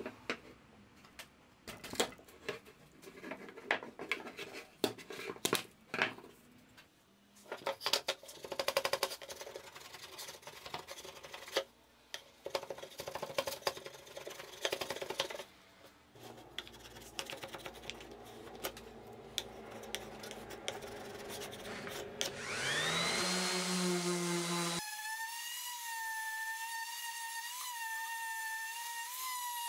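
A steel wood chisel pries and scrapes wooden strips free from their hot-glue hold, giving irregular scrapes and sharp cracks. Near the end a random orbital sander starts up with a rising whine, then runs steadily with a high whine while sanding the wood.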